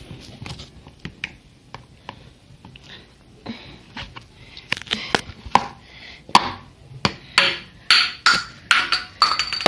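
Slime being handled and squeezed, giving a run of sharp clicks and smacks that come thicker and louder from about halfway through.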